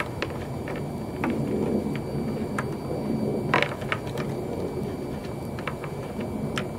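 Scattered light clicks and taps of a headlight bulb and plastic headlight housing being handled and fitted, the loudest about three and a half seconds in, over a steady low rumble.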